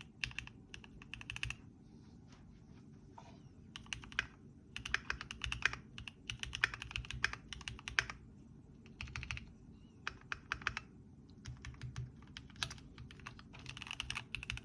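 Typing on a Keychron Q7 aluminium-cased mechanical keyboard: quick runs of key clicks, broken by short pauses of a second or so.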